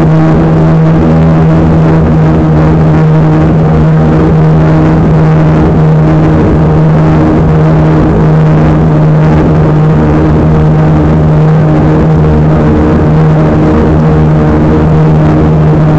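Dumas Donzi Z65 RC model speedboat under way, its motor running loud and steady at one constant pitch close to the onboard camera. The rush of the hull and wake over the water lies underneath.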